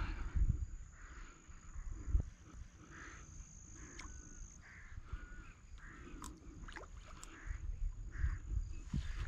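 Frogs croaking in short, repeated calls, with a few light clicks and some low thumps.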